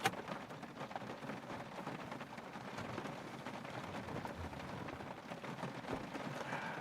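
Rain pattering steadily, with a sharp knock right at the start.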